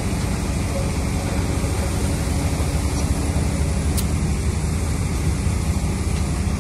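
Diesel engine of an excavator-based PVD installation rig running steadily at a low idle-like drone, with a single sharp click about four seconds in.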